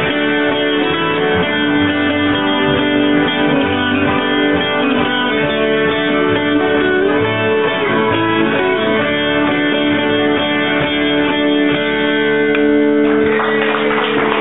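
Dulcimer playing a slow plucked melody over a steady drone, its last notes ringing out near the end. Applause starts just before the end.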